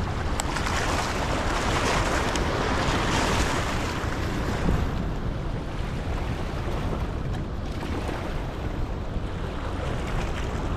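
High floodwater rushing and churning through a spillway: a steady, loud rush of whitewater.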